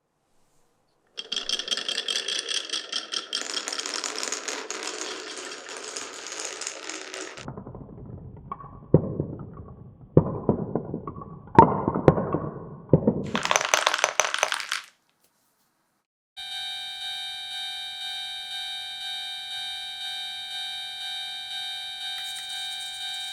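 Glass marbles rolling and rattling along a wooden marble run, then clacking down through blocks with several sharp knocks and a brief high rattle. After a short break, a toy railroad crossing signal rings with a steady electronic chime, pulsing about twice a second.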